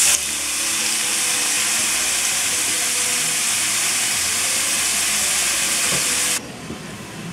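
Thawed shrimp sizzling loudly as they land in hot olive oil in a stainless steel skillet, a steady frying hiss. Near the end it drops suddenly to a much quieter sizzle.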